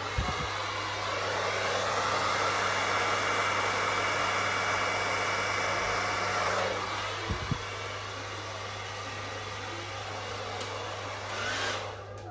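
Handheld hair dryer blowing, used to blow wet acrylic paint out across a canvas in a Dutch pour. It runs as a steady rush of air, drops to a quieter, duller sound about seven seconds in, and cuts off near the end.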